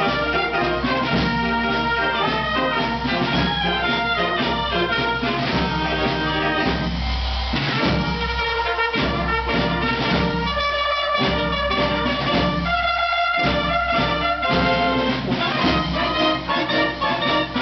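Wind band of clarinets, saxophones, trumpets, euphonium, tuba and sousaphone playing a piece together. Through the middle the bass drops out briefly several times, leaving the upper woodwinds and brass.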